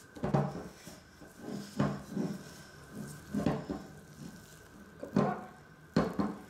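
Hands kneading a soft, sticky yeast dough in a glass bowl: irregular squelches and slaps, with the dough bumping against the bowl, about one every second.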